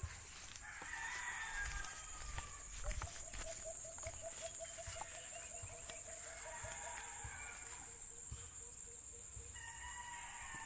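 Roosters crowing several times, with a steady high-pitched insect drone behind them.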